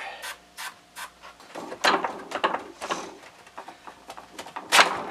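Short sprays from a WD-40 aerosol can onto the pivot post of an old plastic fresh-air intake flap, mixed with clicks and knocks as the brittle plastic housing is handled. The loudest sound, short and sharp, comes near the end.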